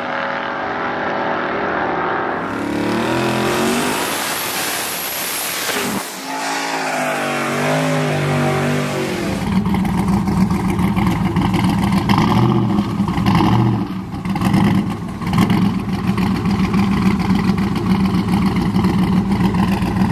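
Drag-racing pickup trucks accelerating hard down the strip, the engine sound rising in pitch as they pull away. After a cut, a square-body Chevrolet Silverado's engine idles loudly and is briefly revved a few times.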